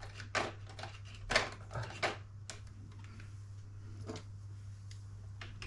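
Light, irregular clicks and taps of small plastic model parts and tools being handled on a work mat, most of them in the first couple of seconds and a few more later, over a steady low hum.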